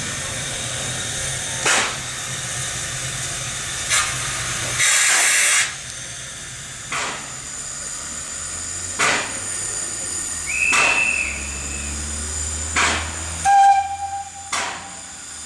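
Px29 narrow-gauge steam locomotive standing with steam hissing steadily, broken by short louder bursts of steam about every two seconds, the longest just past a third of the way in. A brief high tone sounds about two-thirds of the way through.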